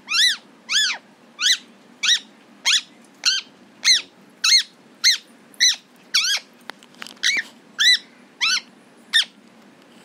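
A pet green parrot calling from its cage: a string of about sixteen short, high-pitched squawks, each rising then falling in pitch, about two every second, with a brief pause about two-thirds of the way through.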